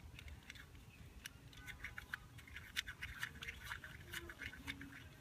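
Spin dial of a plastic fidget cube being flicked round, giving faint, irregular light clicks and scratching.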